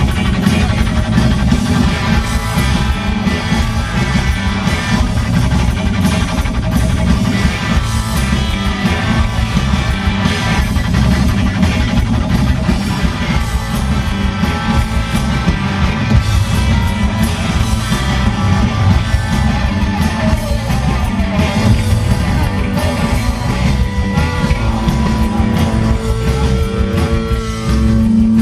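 Live rock band playing an instrumental stretch with electric guitar, bass and drums to a steady beat, with a few long held notes near the end.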